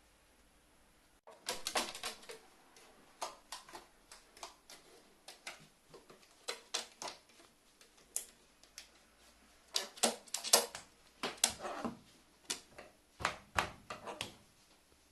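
A quick, irregular run of sharp taps and clicks on something hard, some single and some in rapid clusters, starting about a second in.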